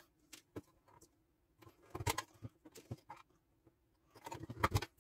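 Wire stripper and stiff wires being handled over a plastic gang box: short clusters of small clicks and rattles, about two seconds in and again near the end.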